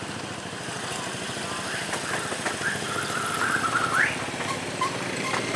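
Diesel-electric locomotive's engine running as it draws a passenger train slowly towards the camera. A wavering high-pitched tone joins about two seconds in and climbs sharply before breaking off near four seconds.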